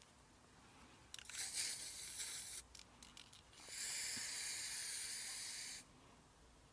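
Aerosol spray-paint can spraying in two bursts: a shorter, uneven hiss about a second in, then a steadier, louder hiss lasting about two seconds.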